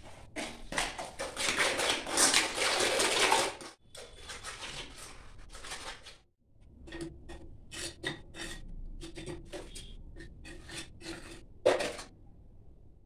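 Trowel scraping and stirring cement mortar in a metal bowl: a steady gritty scraping for about three seconds, then a run of short scrapes and clinks on the metal, with one sharp knock of the bowl near the end.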